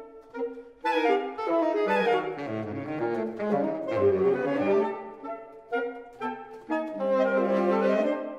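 Alto, tenor and baritone saxophones playing together as a classical chamber trio: a quick passage of short, separated notes, ending in a held chord near the end.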